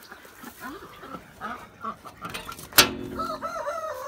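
Young turkeys calling with short, scattered chirps and peeps, with a single sharp clank about three seconds in and a wavering drawn-out call near the end.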